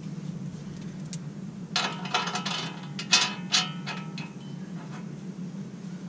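Metal hand tools clinking and rattling as they are picked up and handled, a run of sharp metallic clinks about two to four seconds in, over a steady low hum.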